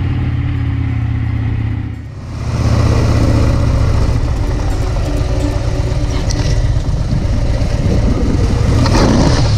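Harley-Davidson V-twin motorcycle engine running steadily under way, with wind and road noise. The sound dips briefly about two seconds in, then comes back louder with more wind noise, swelling near the end.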